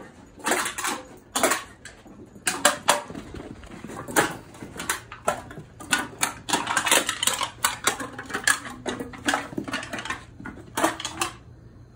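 Empty aluminum soda can being pushed, mouthed and knocked about by an Australian Terrier puppy on carpet: a run of irregular metallic clinks and clatters with short pauses, dropping away near the end.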